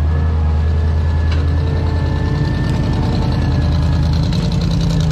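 Lifted off-road truck's engine running at a steady, unchanging note while crawling over rock.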